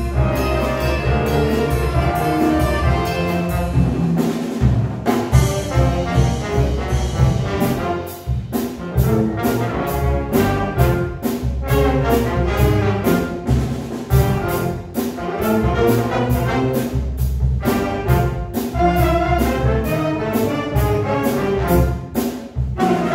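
Live jazz big band playing, with saxophone, trombone and trumpet sections over drums, bass and guitar; the brass is prominent, with regular sharp accents on the beat.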